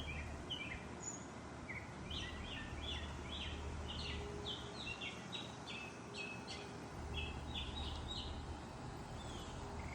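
Songbirds chirping: runs of short, quick notes repeated a few times a second, busiest in the middle, over a steady low background hum.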